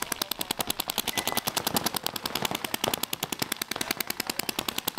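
Paintball markers firing in rapid, continuous streams, several at once, with dense sharp pops that never let up.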